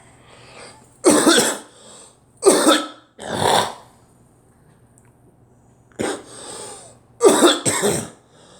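A person coughing in two fits: three hard coughs in the first few seconds, a pause, then a weaker cough and two quick coughs near the end.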